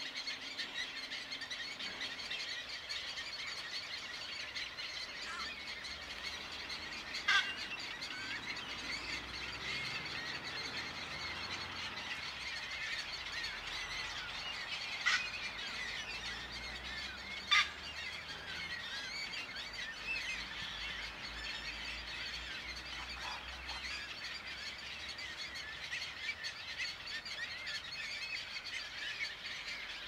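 A dense, continuous chorus of many birds chirping and squealing together, with three louder, sharp calls standing out: one a few seconds in and two close together near the middle.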